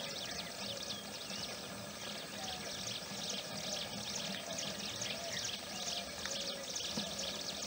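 Morning bird chorus: many small birds chirping in a dense, continuous high chatter, with a few lower, short whistled calls now and then.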